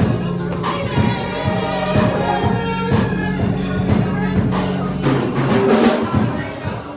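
Live gospel worship music from a church band: sustained chords with steady drum hits.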